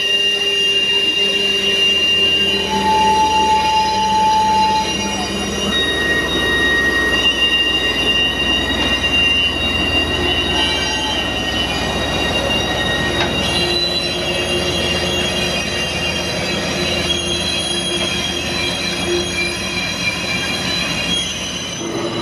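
Steel wheels of a slow-moving narrow-gauge train squealing on a tight curve: several steady high-pitched squeal tones shift and overlap every few seconds over the low rumble of the passing cars and locomotive.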